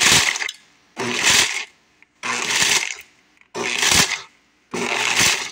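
Blendtec Total Blender pulsed in five short bursts, about one a second, crushing hard sugar-free peppermint candies into pieces.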